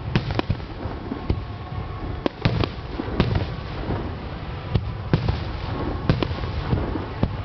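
Starmine finale of aerial firework shells bursting overhead: about a dozen sharp bangs at irregular spacing, a few of them in quick succession, over a steady low rumble.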